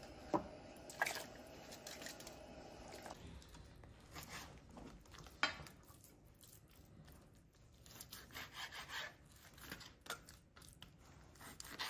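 Faint kitchen handling noises: scattered light knocks, clicks and rustling, with a faint hum that stops about three seconds in.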